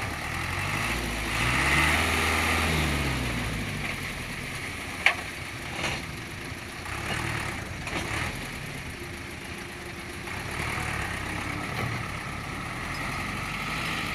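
Diesel engine of heavy construction machinery running, its pitch shifting over the first few seconds and then settling into a steady run. A sharp click about five seconds in.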